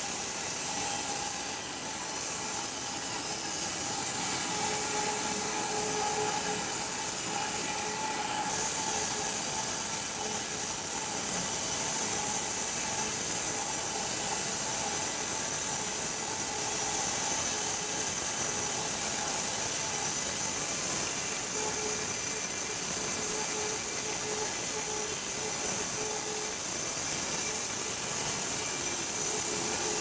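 Electric wide-cut bandsaw mill cutting lengthwise through a large walnut log: a steady hiss of the blade in the wood over a constant hum from the running saw head. The hiss grows a little louder about eight seconds in.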